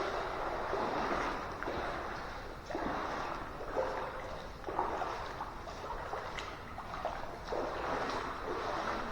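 Footsteps wading through shallow creek water, a splashing swish with each step.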